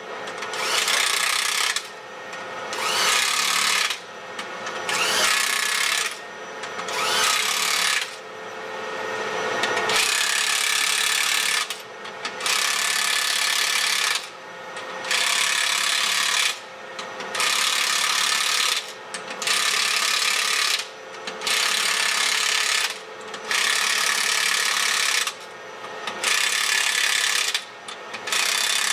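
Impact wrench hammering on the nuts of a tank road wheel hub, in about fourteen bursts of a second and a half to two seconds each, with short pauses between them.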